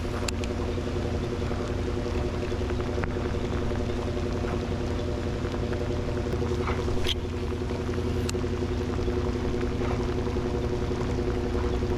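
Boat motor running steadily with an even, unchanging hum, as the fishing boat moves across the lake; a few light clicks break in briefly.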